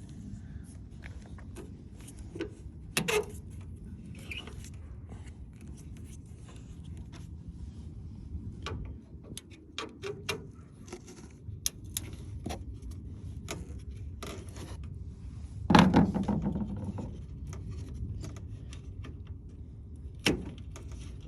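Scattered clicks, scrapes and rattles of hands and an Allen wrench working a Toyota Tundra's taillight housing loose from the truck, with a louder knock about 16 seconds in and another near the end, over a steady low rumble.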